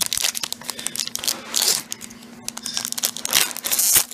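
Foil wrapper of a Pokémon TCG Legendary Treasures booster pack crinkling and being torn open by hand, with two louder rips, about one and a half seconds in and near the end.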